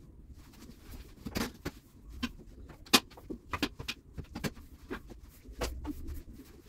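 Broom sweeping clipped dog hair across a hard floor: irregular short scrapes and sharp knocks of the broom head against the floor and furniture.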